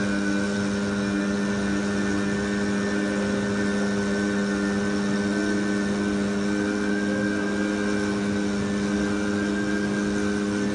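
A single steady drone tone with several overtones, held unbroken at one pitch.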